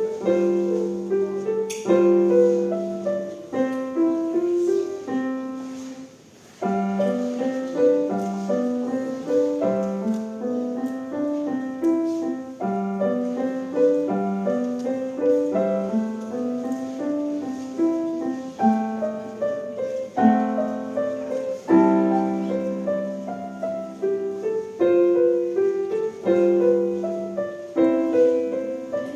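Bösendorfer grand piano playing a light classical piece with a melody over a repeated accompaniment. About six seconds in, the playing breaks off for half a second and then starts again.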